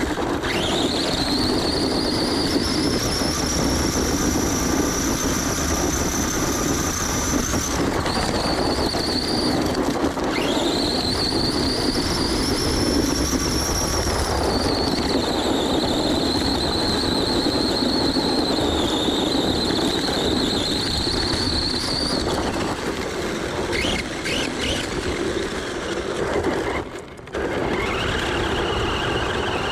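Redcat Volcano EPX RC truck's brushed electric motor and drivetrain whining at full throttle on a 3S battery, beyond the motor's 2S rating. The high whine climbs in pitch as the truck speeds up, breaks off, then climbs again about ten seconds in and holds, over a steady rushing noise.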